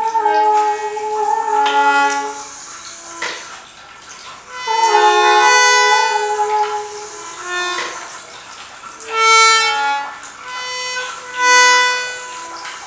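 Self-playing free-reed instruments sounding overlapping sustained reedy tones that swell and fade, with louder swells about a third of the way in and twice more near the end.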